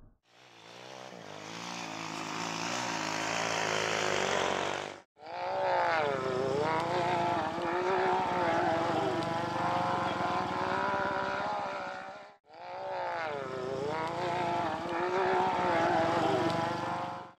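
Multirotor camera drone's propellers and motors whining, the pitch wavering up and down as they change speed. The sound stops dead twice, about five and twelve seconds in, and picks up again each time.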